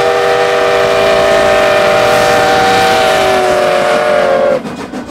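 Steam whistle of narrow-gauge K-36 steam locomotive #488, blown in one long blast with several notes sounding together as a chord. It sags slightly in pitch as it is shut off about four and a half seconds in, leaving the coaches' wheels clicking over the rail joints.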